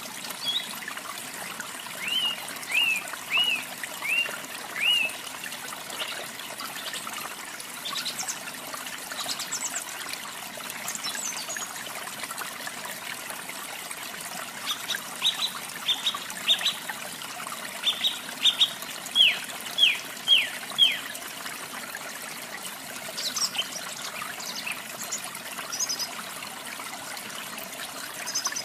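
Running water trickling steadily, with a songbird singing over it: two bouts of clear whistled notes that slide down in pitch, about two a second, and a few higher, thinner chirps between them and near the end.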